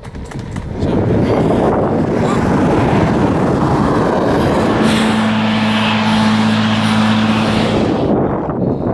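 Wind rushing over a bicycle-mounted camera's microphone while riding, with a car passing close alongside; its engine is heard as a steady hum for about three seconds in the middle.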